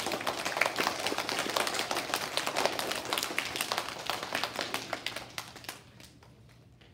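An audience of schoolchildren clapping, a dense patter of many hands that thins and dies away about five or six seconds in.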